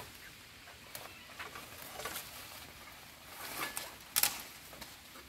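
Footsteps and rustling through dry leaves and undergrowth: scattered light crackles with no steady rhythm, the loudest a sharp crackle about four seconds in.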